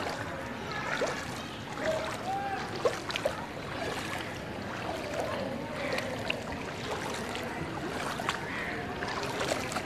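Floodwater sloshing and swishing around a person's legs as they wade through a flooded street, with a couple of sharper splashes about three seconds in.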